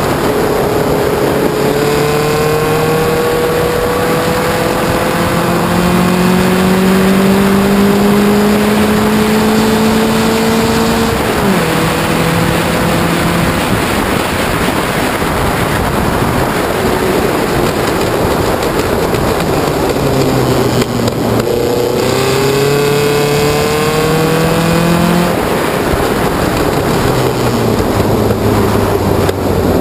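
Air-cooled Volkswagen flat-four engine of a 1969 Zink Formula Vee racing car at speed on track: the revs climb slowly for about ten seconds, drop sharply at a gear change, then dip and pick up again and ease off near the end, over wind and road noise.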